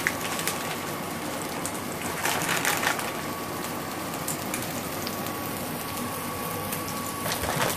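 Steady sizzling hiss of food frying in a pan on the stove, with a few light clicks of pistachio shells being cracked open by hand.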